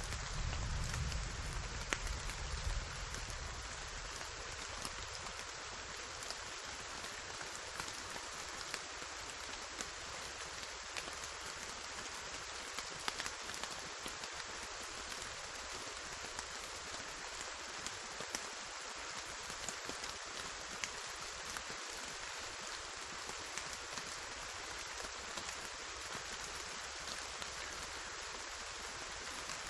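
Steady heavy rain, an even hiss with individual drops ticking sharply on a surface. A low thunder rumble dies away in the first few seconds.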